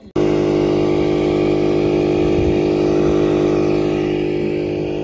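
A motor running steadily at constant speed: a loud, even hum with a clear pitch that starts abruptly and eases slightly in level over the last couple of seconds.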